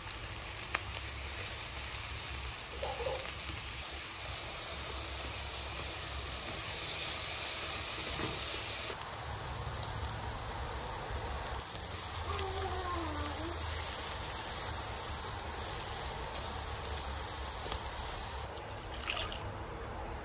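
Chopped mushrooms and onion sizzling in a non-stick pot as they fry and are stirred with a spatula, a steady sizzle.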